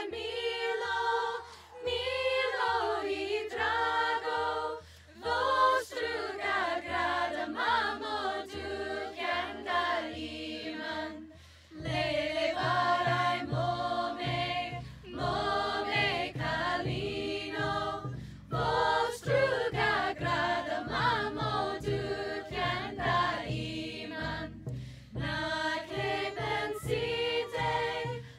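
A group of voices singing a song together, phrase by phrase with short breaks between lines. About twelve seconds in, a low, steady drum beat joins the singing.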